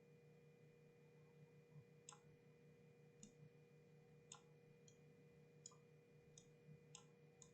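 Near silence with a low steady electrical hum and about eight faint, scattered clicks from the computer mouse and keys being worked during 3D modelling.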